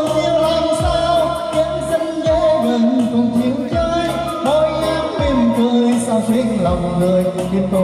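A pop song with a sung vocal over a beat. Its deep bass notes slide down in pitch about every second and a half.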